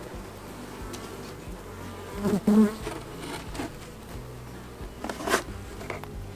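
Honey bees buzzing steadily around an open hive, with a brief louder, wavering buzz about two and a half seconds in and a single sharp knock about five seconds in.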